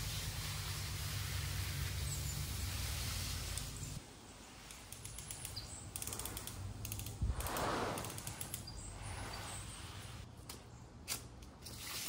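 Garden hose spray nozzle spraying water: a steady hiss and patter that drops away about four seconds in. After that the spray is quieter and patchier, with a brief swell of noise near eight seconds.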